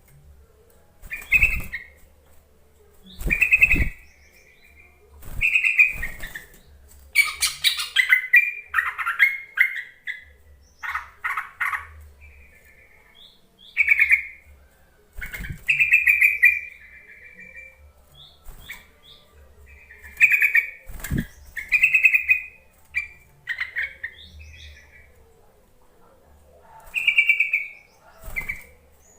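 Yellow-vented bulbul (trucukan) calling: short, bubbly whistled phrases repeat every couple of seconds, with a longer run of rapid chattering about a quarter of the way in. This is a lure call for getting a quiet bird to sing.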